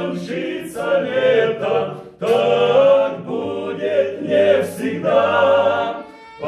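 Male vocal group singing a Christian song in several-part harmony, with held chords. The singing drops out briefly about two seconds in and again just before the end.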